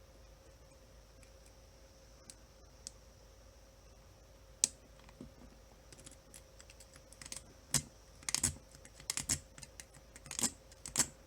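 Metal lock pick and tension wrench clicking and rattling in the cylinder of an OnGuard cable lock as it is picked. It is mostly quiet at first, with one sharp click about four and a half seconds in, then a run of irregular clicks and rattles through the second half.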